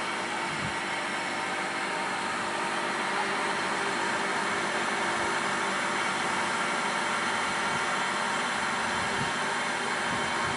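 VEB LBFM II S horizontal boring machine running idle, its electric motor and spindle giving a steady whirr with a faint whine.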